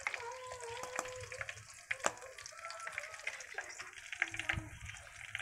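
A serving utensil stirring, scraping and clinking against an aluminium pot of soup as it is dished into a bowl, with sharp clinks about one and two seconds in. A faint wavering tone runs underneath.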